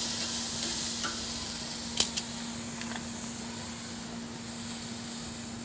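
Beef tri-tip sizzling as it sears on a Napoleon Sizzle Zone infrared side burner: a steady hiss with a few sharp pops, the loudest about two seconds in, over a faint steady hum.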